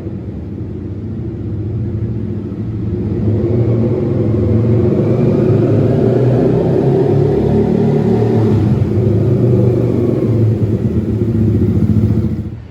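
Yamaha XSR 155's single-cylinder engine running through an aftermarket Orion header and SC Project muffler, very loud. It grows louder about three seconds in and cuts off near the end.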